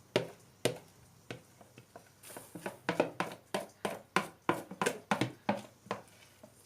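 A spoon scraping the last of the cake batter from the bottom of a mixing bowl: a run of short scrapes and taps, sparse at first, then two to three a second from about three seconds in.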